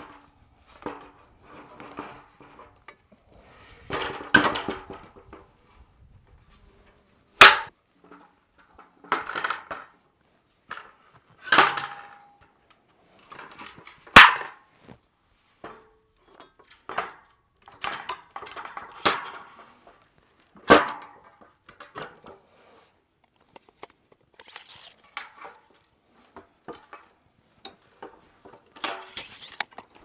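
Scattered metallic clanks, clicks and rattles from the metal track rails and adjustable leg posts of a swing-blade sawmill being fitted together by hand, with a few sharp, loud knocks among softer clatter.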